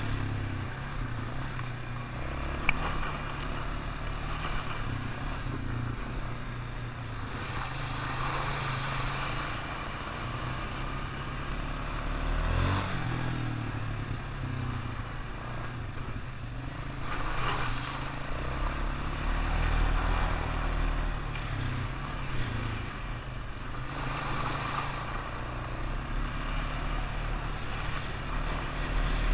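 ATV engine running while riding, its pitch stepping up and down as the throttle and load change, with several spells of louder rushing noise.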